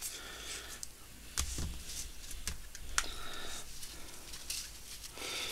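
Light, scattered clicks and taps of trading cards being handled, separated and set down on a table.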